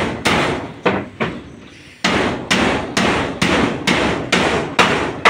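Hammering on a building site: a steady run of loud blows, about two to three a second, each ringing on briefly. There is a short break a little before halfway, then the blows resume.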